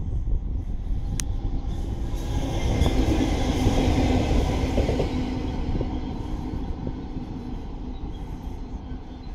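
Freightliner diesel locomotive passing: a steady engine drone over rail rumble that grows to its loudest about three to four seconds in, then fades as it draws away. A single sharp click sounds about a second in.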